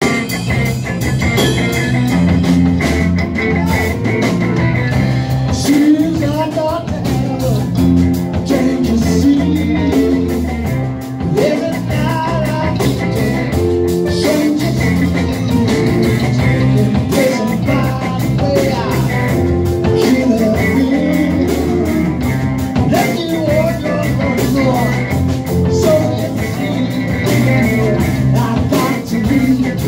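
Live rock band playing loudly: electric guitars, bass guitar and a drum kit keeping a steady beat, with a man singing lead into a microphone.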